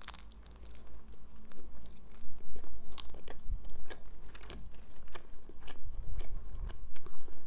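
A close-miked bite into a shawarma wrap, then chewing with many short crisp clicks and crunches throughout.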